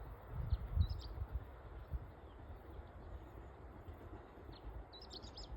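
A small bird chirps in two short clusters of quick high notes, about a second in and again near the end, over a low rumble that is strongest in the first two seconds.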